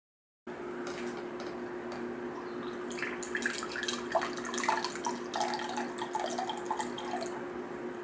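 Liquid trickling and splashing into a container for a few seconds, over a steady low hum that starts about half a second in.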